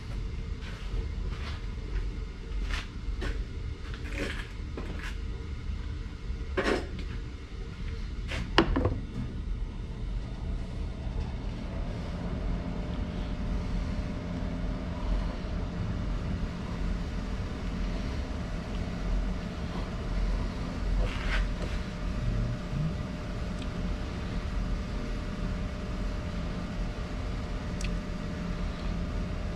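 Metal tools and parts clinking and knocking on a workbench while a dial indicator is being set up to check ring-and-pinion backlash, a dozen or so sharp clicks in the first nine seconds. After that, only a steady low hum with a faint steady tone, with a couple of light taps.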